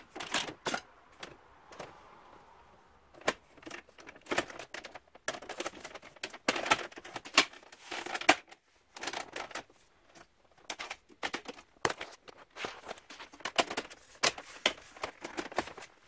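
Plastic dashboard switch panel being handled and pressed back into place: irregular clicks, taps and rattles of hard plastic trim.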